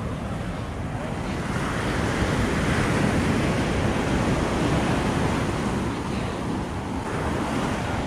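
Ocean surf breaking and washing up a sand beach: a steady hiss that swells about a second and a half in and eases off near the end. Wind buffets the microphone underneath it.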